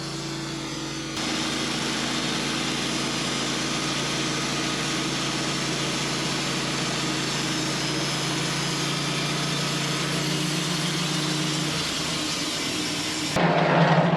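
Sawmill engine running steadily while the blade cuts through a hickory log, with a steady hiss that gets louder about a second in. Near the end the hiss stops abruptly and a louder, lower sound takes over.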